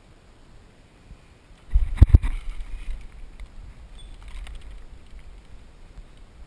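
A sudden heavy thump and low rumble about two seconds in, with two sharp knocks, as the hook is set on a bass from a kayak; it dies away over a couple of seconds, followed by light splashing as the hooked bass jumps and thrashes at the surface.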